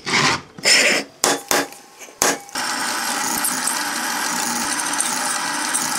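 A few short clicks and knocks from handling a small metal case, then, about two and a half seconds in, a drill press running steadily as its bit drills a hole through a steel plate.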